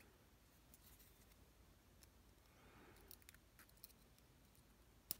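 Faint, scattered clicks of small metal lock pins being handled and set down, with one sharper click near the end, over near silence.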